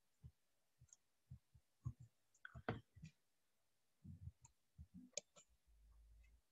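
Near silence broken by faint, irregular clicks from a computer mouse and keyboard, about a dozen in all.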